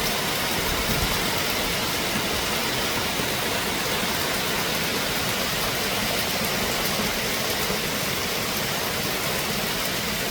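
Steady, even rushing of water with no break, as in heavy rain or fast-flowing floodwater.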